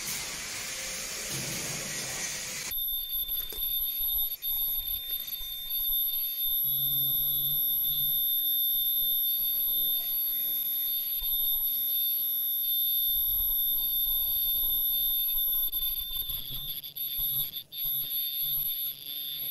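Disposable mask making machine running on a test cycle: a hiss in the first few seconds gives way to a steady high-pitched tone over a lower hum, which stops just before the end.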